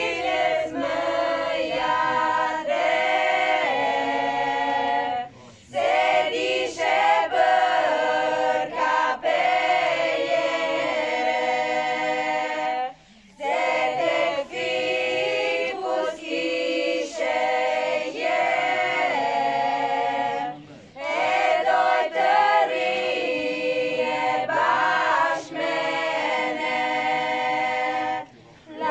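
A women's choir singing a cappella, in long phrases broken by short pauses for breath about every seven to eight seconds.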